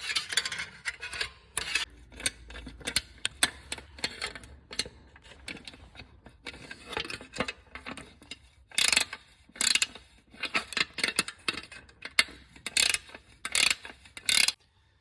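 Irregular metallic clicks and short rattling runs of hand tools working bolts into a brake splash guard, with a few denser clusters in the second half.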